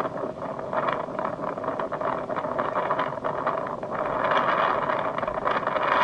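Strong wind blowing over a choppy lake, a steady rushing noise that grows louder about four seconds in.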